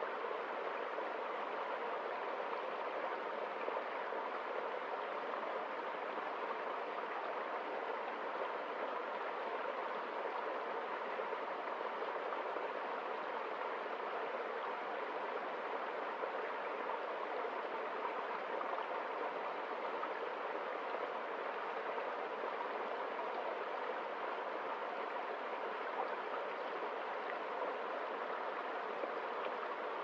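Small, shallow forest stream flowing over its bed: a steady, even rush and babble of water that holds the same level throughout.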